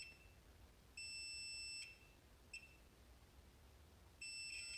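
Multimeter continuity beeper sounding a steady high-pitched beep: a beep of about a second, a short blip, then another beep near the end. The beep comes and goes, showing patchy continuity through the varnished shunt wire of a motor brush.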